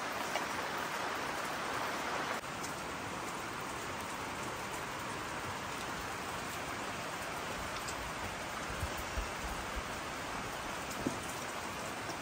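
Steady rain falling: an even hiss with a few louder drops, dropping slightly in level about two and a half seconds in.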